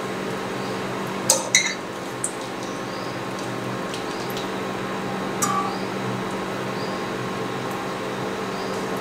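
Steady electrical hum from an induction cooktop with the faint sizzle of bread-potato balls frying in oil on low heat. A steel slotted spoon clinks against the steel kadai a few times, at about a second and a half in and again past five seconds, as the balls are turned.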